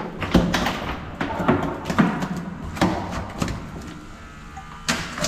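Irregular knocks and thumps against a small fishing boat's hull as a handline is worked from the boat, about seven or eight of them, with the loudest pair near the end.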